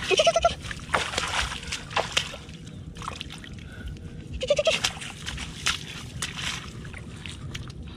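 Hands and bare feet splashing and squelching in shallow muddy water among grass, in a string of irregular splashes. A short high call sounds twice, near the start and about halfway through.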